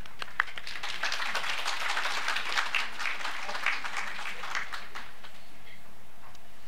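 Crowd applauding: many hands clapping. The applause rises about a second in and dies away after about five seconds.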